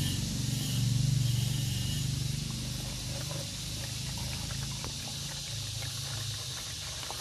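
Distilled water being poured from a jug into a car's coolant reservoir. The low pouring sound is loudest in the first couple of seconds, then eases off, with a steady high hiss behind it.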